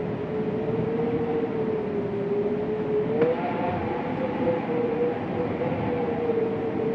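Winter wind moaning: a steady rush of wind carrying one wavering moaning tone, which rises a little about halfway through as a fainter higher tone joins it.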